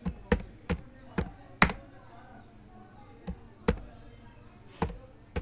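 Computer keyboard keys pressed one at a time as a word is typed slowly: about eight sharp, unevenly spaced keystrokes, with a pause of more than a second in the middle.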